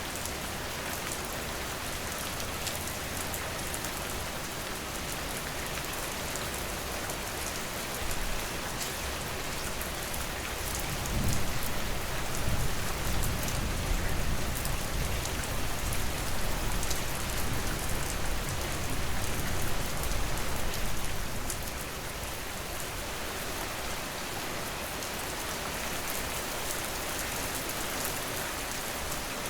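Steady heavy rain falling on a surface. A deep rumble of thunder swells about a third of the way in and lasts roughly ten seconds before fading.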